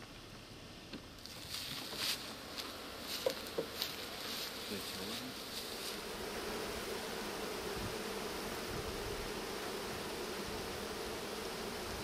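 Scattered light knocks and clicks, then a steady hum of many honeybees confined in screened package boxes, which sets in about halfway through.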